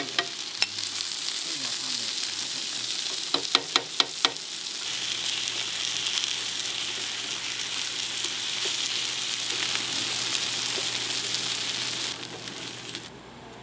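Food frying in oil on a hot pan, a steady sizzle. There are several sharp clicks about three to four seconds in, and a low hum joins about five seconds in. The sizzle fades away near the end.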